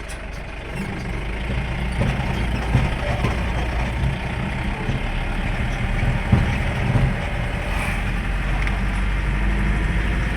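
Vehicle engine running steadily, growing louder about a second in, with a few short knocks over it.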